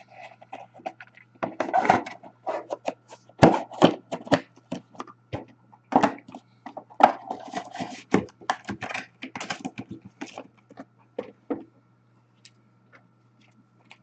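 Hands handling trading cards and their packaging on a table: an irregular run of taps, clicks and knocks that thins out after about eleven seconds.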